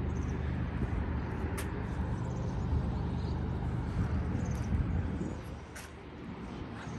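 Steady low rumble of city traffic, with a few faint high chirps.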